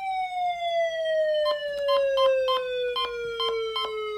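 Warning siren winding down, one tone falling steadily in pitch. About a second and a half in, a run of light clicks starts, about three a second.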